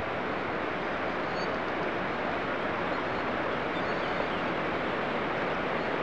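Steady rushing of a mountain stream's flowing water, even in level throughout, with a faint bird chirp about a second and a half in.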